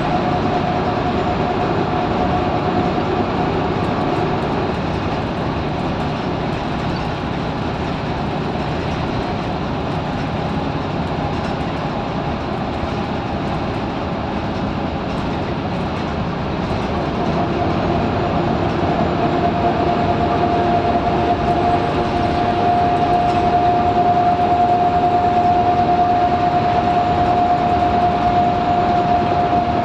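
Scania L94UB Wright Solar bus heard from inside the passenger saloon while on the move: steady engine and road noise with a high drivetrain whine. The whine fades a few seconds in, then returns stronger and louder from about eighteen seconds in as the bus pulls harder.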